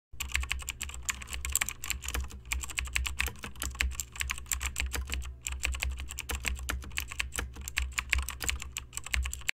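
Computer keyboard typing: rapid, continuous keystrokes with a couple of brief pauses, over a low steady hum.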